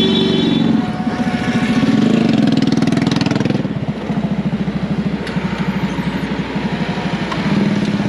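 Caterpillar motor grader's diesel engine running under load close by as it grades the road bed. Its pitch rises and falls around two to three seconds in, then settles into a fast, even throb.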